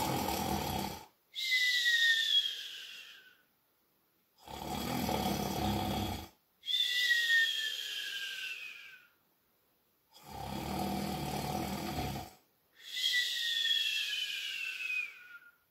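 A man doing exaggerated cartoon snores: three times over, a snore of about two seconds followed by a whistle that falls in pitch.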